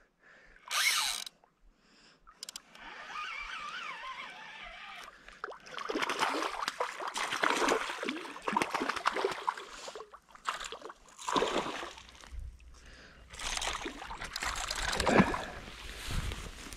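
Water splashing and sloshing in irregular bursts as a hooked pike thrashes at the surface while it is played and landed.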